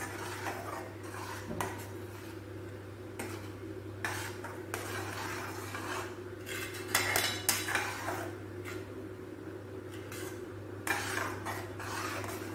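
Metal spoon stirring and scraping against a stainless steel kadai as thick ground coconut paste is mixed into the masala, in repeated strokes, louder about seven seconds in and again near eleven seconds. A steady low hum runs underneath.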